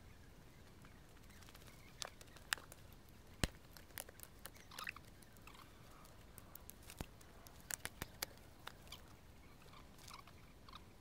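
Dry twigs and small sticks being snapped and handled while a fire is laid: irregular sharp cracks and crunches, the sharpest about two and a half and three and a half seconds in, with a cluster near the end.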